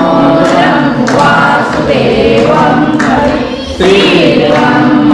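A group of worshippers, mostly women, singing a Marathi aarti hymn together in unison while the aarti lamp is waved.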